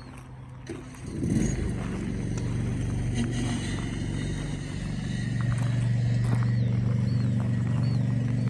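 An engine starts running about a second in and goes on steadily, growing louder around five seconds in, with a few faint high chirps and light knocks over it.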